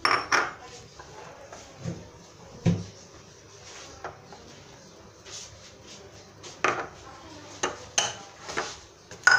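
Small stainless steel saucepan clinking and knocking against a glass bowl and a stone countertop while thickened orange glaze is poured out of it. The sharp knocks come at irregular moments, the loudest right at the start and just before the end.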